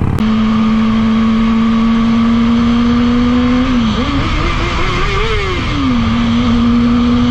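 Sport bike's engine humming at a steady high pitch at freeway speed, with wind and road noise rushing past. About four seconds in the engine note rises and then falls back to the same steady pitch.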